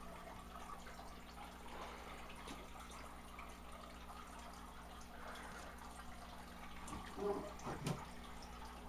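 Aquarium water faintly bubbling and dripping over a steady low hum, with a few louder short sounds about seven seconds in.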